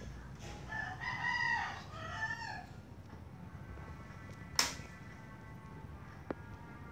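A rooster crowing once, a call of about two seconds starting about a second in. Later a sharp click, the loudest sound, and a fainter click near the end.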